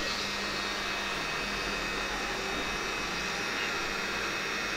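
Electric rotary tool with a flexible shaft attachment running steadily at a lowered speed setting, an even motor hum with a faint whine.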